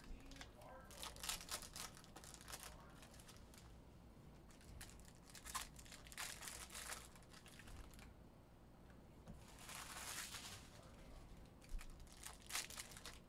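Foil trading-card pack wrappers being torn open and crinkled, in several short faint bursts of crackling with quiet gaps between.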